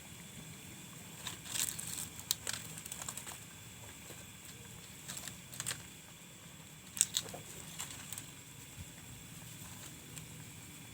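Scattered light scrapes, crinkles and clicks of food being handled and mixed by hand.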